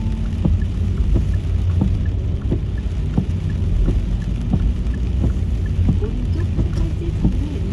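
Car road and engine rumble heard from inside the cabin, with raindrops pattering irregularly on the windshield and roof. A faint, regular tick sounds about every 0.7 s.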